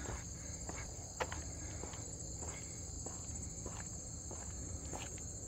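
Steady high-pitched buzzing of insects, with soft footsteps on a brick path about every half second to second.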